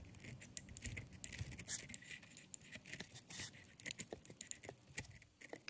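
Knife tip scraping and picking at the plastic inside a PC fan's rotor hub, cutting out a small molding tag that was catching on the stator: a faint, irregular run of scratchy ticks. The plastic sounds to the repairer like fiber-reinforced plastic.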